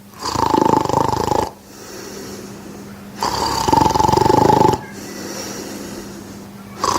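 A person snoring evenly and regularly: three rasping snores on the in-breath, roughly every three seconds, with quieter breathing out between them and no pauses in breathing. This is the uniform pattern of simple snoring, before it turns into sleep apnoea.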